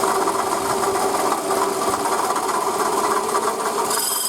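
Toyota Camry 2AZ-FE 2.4-litre four-cylinder engine running with a fast, steady metallic knocking from its failing water pump, driven through the accessory belt. A brief high-pitched rasp near the end.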